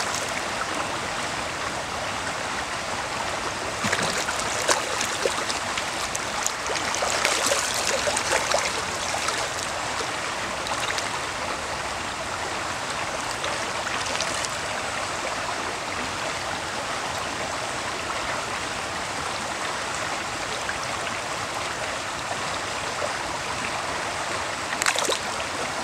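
Shallow stream running steadily over a gravel bed, with splashes from spawning sea trout thrashing at the surface about four seconds in, for a couple of seconds around eight seconds in, and again near the end.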